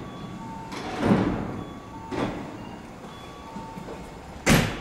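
Electric commuter train's sliding doors closing at a platform: two softer door sounds, then a loud thud about four and a half seconds in as the doors shut.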